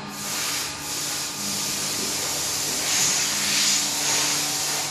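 A loud rushing hiss that swells and eases several times, starting and stopping abruptly, over a steady low machine hum.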